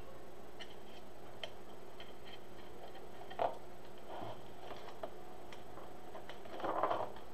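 Hands working deco mesh onto a wreath-style rail: scattered faint clicks and light rustling, with a sharper click about three and a half seconds in and a short rustle near the end.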